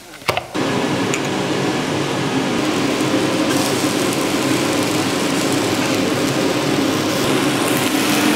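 A fan running with a steady hum and a low droning tone, switched on about half a second in.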